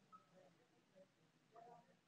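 Near silence, with only a few very faint short blips.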